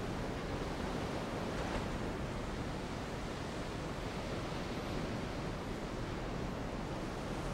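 Sea surf washing steadily against a rocky shore, with wind, as an even, unbroken hiss.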